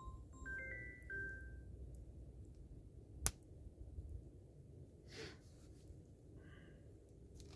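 Mobile phone ringtone: a short melody of a few clear notes that stops about a second and a half in. About three seconds in comes a single sharp click, the loudest sound.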